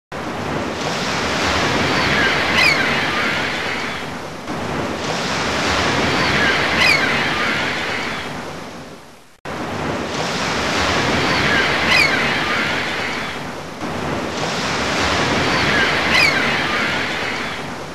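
Looped recording of ocean waves breaking, each surge of surf swelling and fading about every four to five seconds. The loop cuts out briefly about halfway through and starts over.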